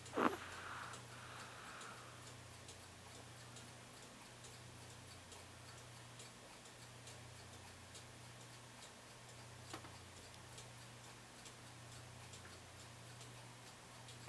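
A domestic cat purring steadily, the low purr swelling and easing with each breath. A clock ticks faintly behind it, about twice a second.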